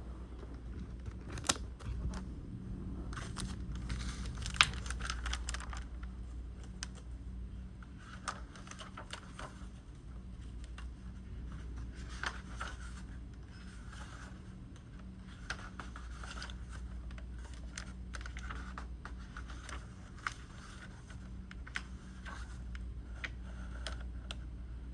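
Scattered small clicks and taps, with two sharper knocks in the first five seconds, over a steady low hum.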